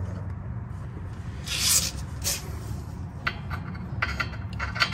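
Brief scrapes and a run of light metallic clicks as a brake caliper and its bolt are handled and fitted into place, over a steady low hum.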